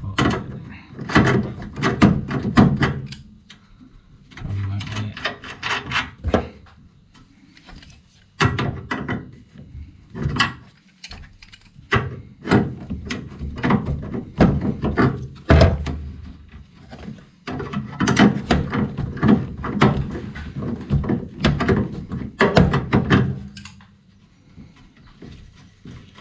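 Water pump pliers working a brass compression fitting on a copper pipe: bursts of metal clicks, knocks and scrapes as the jaws grip and slip and the nut is turned, with short pauses between bursts.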